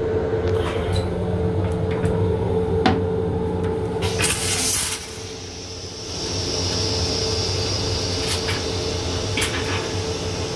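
Steady hum of an M7 commuter railcar heard inside its small restroom, with a few sharp clicks and rattles. About four seconds in, a brief burst of clattering noise comes as the toilet seat is raised.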